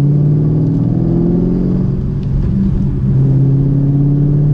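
2015 Chevrolet Camaro SS's 6.2-litre V8 pulling under acceleration, heard inside the cabin over road rumble. Its pitch climbs, drops briefly about halfway through, then picks up again.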